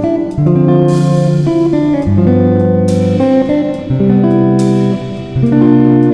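Instrumental background music led by plucked guitar, with the chords changing about once a second.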